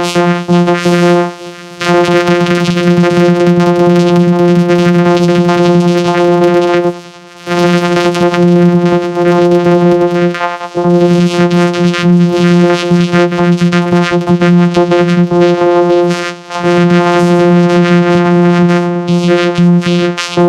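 Loud synthesized buzz held on one steady pitch with many overtones, cutting out briefly four or five times.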